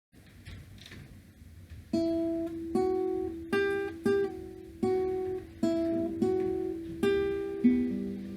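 Acoustic guitar music: after a faint hiss, slow single picked notes begin about two seconds in, each ringing out and dying away.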